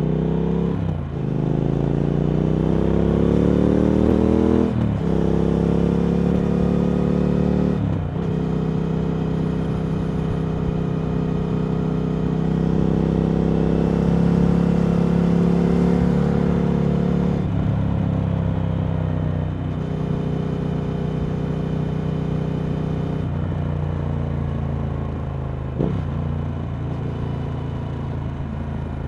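Triumph Speed Twin 1200's 1200 cc parallel-twin engine running through a Vance & Hines slip-on exhaust under way. The pitch climbs and breaks three times in the first eight seconds as it accelerates up through the gears, then holds steady while cruising. In the second half the pitch steps down several times as it slows.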